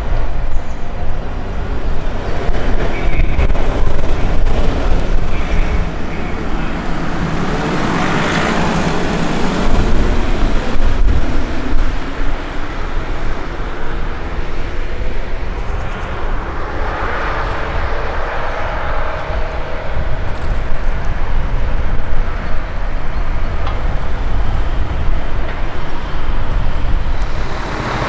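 Road traffic noise with a steady low rumble, as two vehicles pass by, one about 8 seconds in and another about 17 seconds in.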